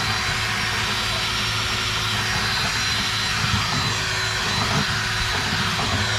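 Power drill running steadily at constant speed, spinning a dryer vent cleaning brush on flexible rods inside the dryer duct.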